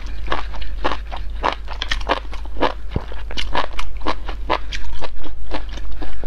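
Close-miked chewing of a mouthful of malatang: quick, wet crunching clicks, about three or four a second.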